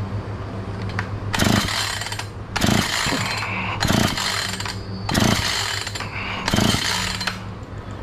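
Husqvarna 445 two-stroke chainsaw being pull-started five times, each rip of the recoil starter rope cranking the engine, which does not catch. The carburettor's low-idle mixture screw has just been set a turn and a half out, and the engine is not getting enough fuel to fire. A steady low hum runs underneath.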